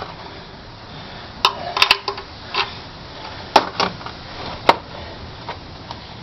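Sharp metallic clinks and taps of hand tools and bolts being handled during an engine teardown, about six scattered strikes over a few seconds.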